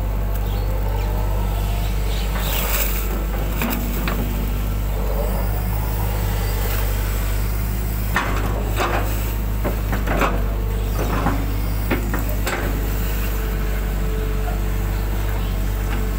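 Hydraulic excavator's diesel engine running steadily under load while the bucket digs and scrapes mud out of a drainage ditch. Sharp knocks and clatters from the arm and bucket come a few seconds in and again in a cluster in the middle.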